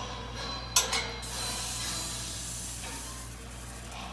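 A metal jar lifter clinks against a hot glass canning jar as it comes out of a boiling-water-bath canner, followed by a hiss of steam that starts suddenly and slowly fades.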